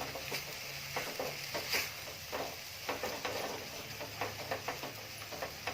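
Ground ginger paste sizzling in hot ghee in a kadhai while a spatula stirs and scrapes it, with light irregular scraping clicks. The paste is being cooked down to drive off its moisture until it turns dough-like.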